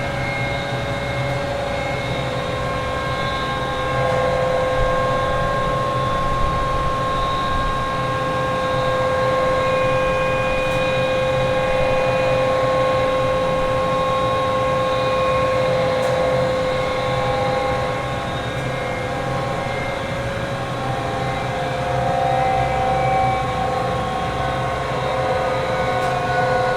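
Factory machinery running steadily: a low hum with several steady machine whines on top, their pitches shifting slightly about two thirds of the way through, and a few faint clicks.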